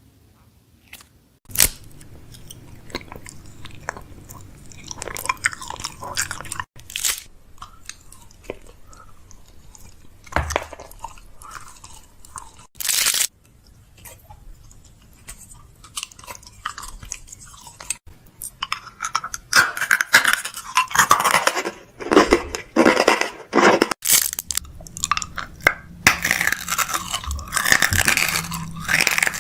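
Packaging and containers handled while restocking a fridge: a few separate knocks and clunks, then, in the last third, a long stretch of dense crinkling and crackling of plastic packaging.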